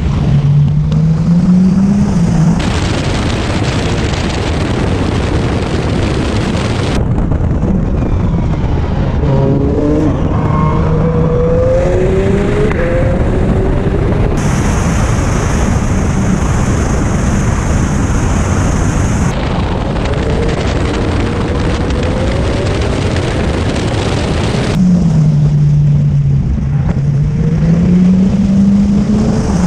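Hyundai RM19 prototype's 2.0-litre turbocharged four-cylinder engine running hard, its pitch rising and falling as it revs up and down through the gears. The sound changes abruptly several times, as between edited clips.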